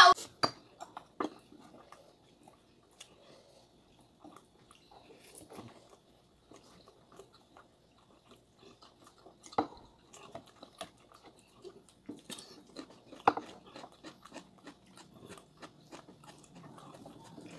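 Close-up eating sounds: quiet chewing and scattered light clicks of chopsticks against a plate and bowl, with a few sharper clicks in the middle.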